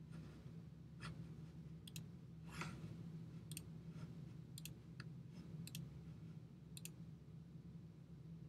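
Faint clicks of a computer mouse, about eight spread irregularly over several seconds as menus and dialog buttons are clicked, over a steady low hum.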